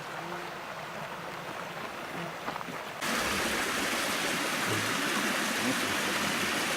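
Running water of a stream, a steady rush that jumps louder about three seconds in.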